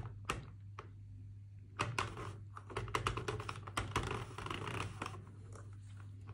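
Sentro 48-needle knitting machine clicking as its crank is turned: its plastic needles rattle in a quick run of clicks as it knits one row of a flat panel. A few single clicks come first, and the run starts about two seconds in.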